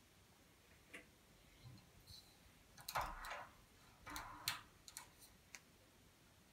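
A radiator's thermostatic valve head being turned by hand: faint irregular clicks and plastic scrapes, loudest about halfway through.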